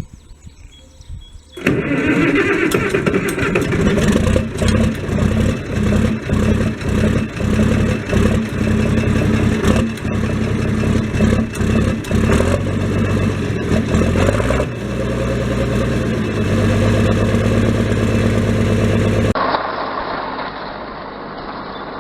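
Tractor engine starting up, then running loud and uneven with a pulsing beat before settling into a steadier run. Near the end the sound cuts to a quieter engine running.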